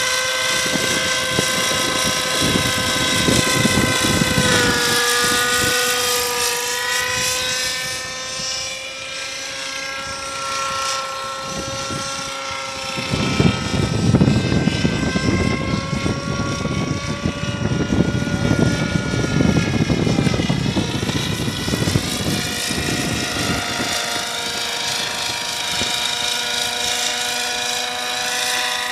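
Radio-controlled model helicopter in flight: a steady high whine from its motor and rotor whose pitch dips and rises a little as it manoeuvres. A low rushing noise of wind on the microphone swells through the middle stretch.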